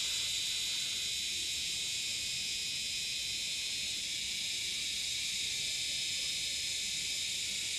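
Steady high-pitched hiss that does not change and has no separate events.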